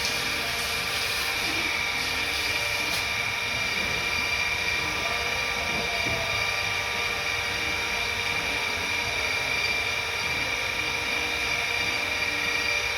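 A machine running with a steady, high-pitched whine that holds unchanged throughout.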